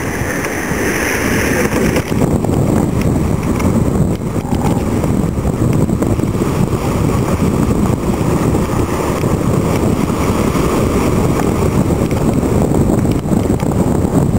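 Wind buffeting the microphone over the rush of churning water in the wake of a Hanse 54 sailing yacht under way in a rough sea. It is a loud, steady roar without any clear tone.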